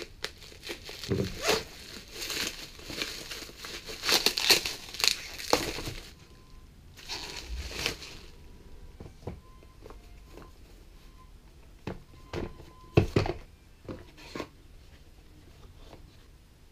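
Plastic bubble-wrap packaging crinkling and tearing as it is cut and pulled off a box, for about six seconds and again briefly a second later. After that come scattered light taps and knocks of small cardboard boxes being handled and opened.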